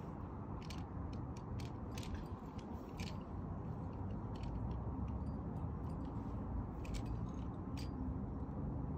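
Scattered small clicks and rustles of climbing gear and rope being handled during belaying, bunched near the start and again about seven seconds in, over a steady low rumble.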